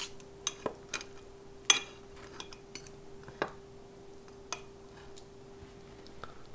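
Steel knife and fork clinking and scraping against a ceramic plate while cutting roast meat: a scattering of short clinks and taps, the sharpest about two seconds in. A faint steady hum runs underneath and stops near the end.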